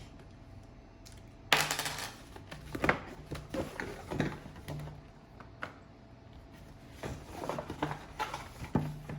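Perfume packaging being unpacked by hand: a burst of paper or cardboard rustling about a second and a half in, then scattered light clicks, knocks and clinks as boxes and bottles are handled and set down.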